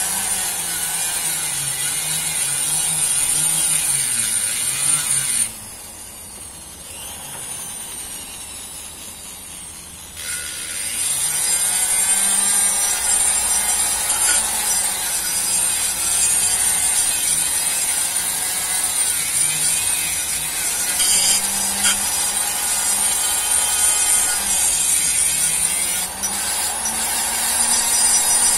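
Handheld rotary grinder with an abrasive stone bit grinding the aluminium of a motorcycle crankcase to port it, the motor's pitch wavering as the bit bears on the metal. The grinding stops about five seconds in and starts again about ten seconds in.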